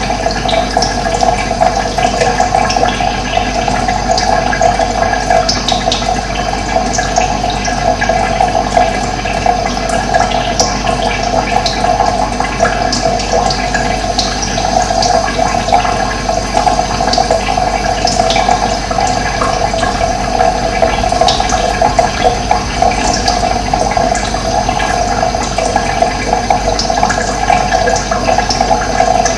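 Steady rushing of running water, with brief high bird chirps scattered over it.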